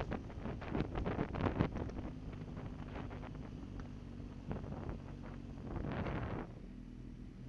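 Motorcycle engine running on the road with wind buffeting the microphone. The gusts are heavy at first and ease after about two seconds, leaving a steady low engine hum. A louder rush of wind swells up near the end and cuts off suddenly.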